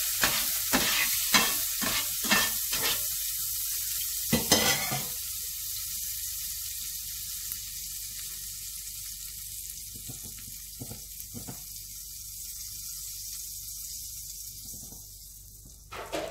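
Butter sizzling as it melts in a hot frying pan, worked around in quick regular strokes for the first three seconds, with one louder knock about four and a half seconds in. The sizzle then dies down slowly, with a few faint knocks.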